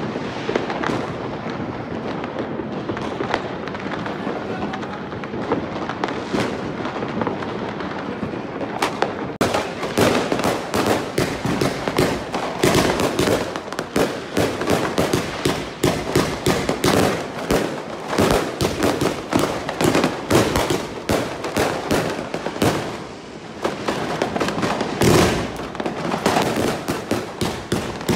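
Fireworks going off. For the first few seconds there is a steady crackle and rumble with the odd bang. From about nine seconds in comes a dense run of sharp bangs and crackles, several a second. It eases briefly, then one louder bang comes near the end, followed by more rapid cracks.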